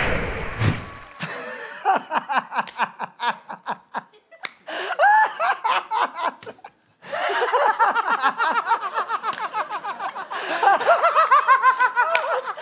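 A man laughing loudly in long fits of quick, repeated bursts, breaking off briefly twice before starting again. A wash of noise fades out in the first second.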